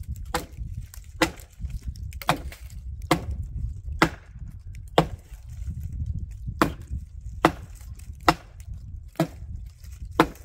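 Axe chopping into a tree branch, a sharp woody knock about once a second, roughly a dozen blows in a steady rhythm.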